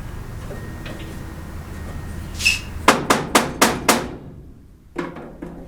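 Five quick hammer blows on metal, about four a second, struck while working at a seized grille screw on a 1972 Dodge van. A short ringing metallic clink comes just before them, and a duller knock about a second after.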